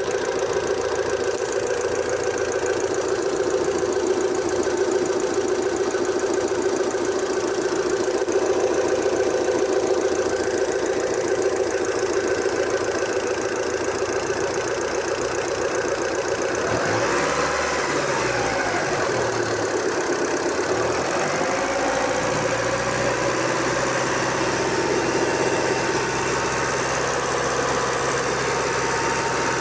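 Hyundai Santa Fe SM's 2.4-litre four-cylinder petrol engine idling steadily. About two-thirds of the way through it is revved briefly, its pitch rising and falling back, before it settles to idle again.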